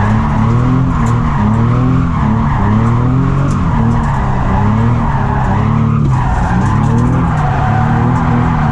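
Nissan 350Z's VQ V6 engine revving up and down hard through a drift run, with its tyres squealing.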